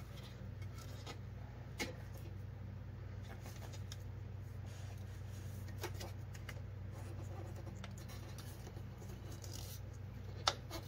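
Light rubbing and scraping as a ribbed serpentine belt is worked onto the crank pulley by hand, with a few sharp clicks from the wrench and belt handling, the loudest near the end, over a steady low hum.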